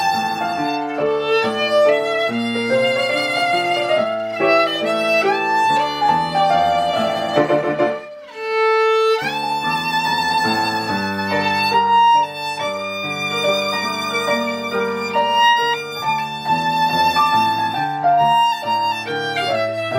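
Violin and piano duet playing a 1920s Japanese popular song, the violin carrying the melody with vibrato over piano accompaniment. About eight seconds in the music thins to one held note, then the violin slides up into the next phrase.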